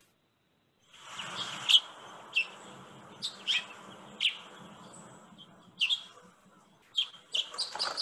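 Recorded house finch calls: about ten short, sharp chirps over a steady faint hiss, starting about a second in.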